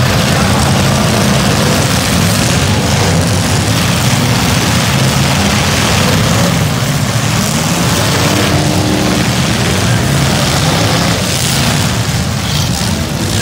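A pack of V8 demolition derby cars running together, a loud, steady engine din.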